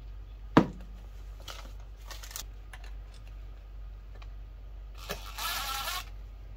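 A sharp knock about half a second in and a few light clicks of hardware, then a DeWalt cordless drill runs for about a second near the end, driving a mounting-bracket screw into the electrical box.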